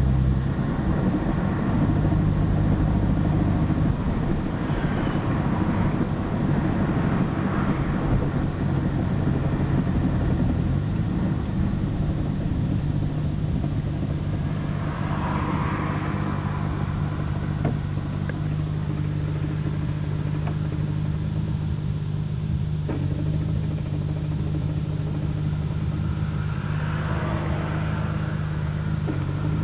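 Nissan Skyline GT-R (BNR34) RB26DETT twin-turbo straight-six running steadily, with the stock Getrag six-speed gearbox and Nismo clutch rattling (gara-gara). The rattle is abnormally loud and is not cured by a gearbox-oil change, which the owner takes as a sign that the gearbox may need an overhaul.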